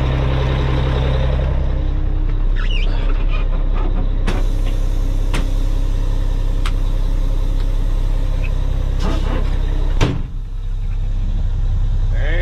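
Semi truck's diesel engine idling steadily, heard from the cab, with scattered clicks and knocks as the dash switches are worked and one sharp knock about ten seconds in.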